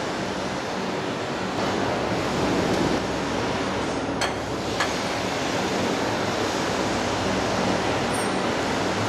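Steady machinery noise of an injection molding machine, a hiss with a low hum under it. Two sharp clicks sound about four seconds in, half a second apart.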